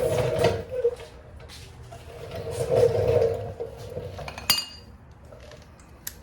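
Metal hand tools and parts being handled: shuffling, scraping noise, then one sharp metal clink that rings briefly about four and a half seconds in.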